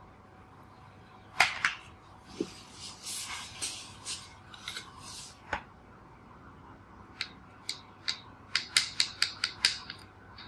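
Desk handling noises: a sharp click, a few seconds of scratchy rubbing, then a quick run of light clicks, about four a second, near the end.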